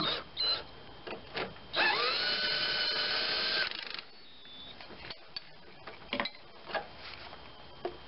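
Power drill with a 15 mm socket spinning a nut down onto the engine-mount stud for about two seconds. The pitch rises quickly as it spins up, holds as a steady whine, then stops with a brief stutter. A few clicks of the socket and metal parts come before and after.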